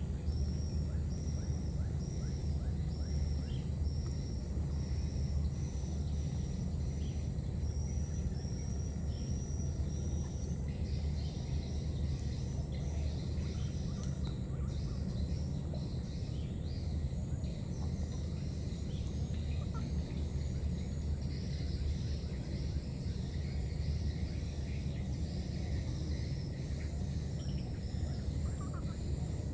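Outdoor ambience: a steady low rumble, with a high chirp from a bird or insect repeated evenly a little under twice a second. The chirping stops after about ten seconds, leaving a faint high hiss with scattered ticks.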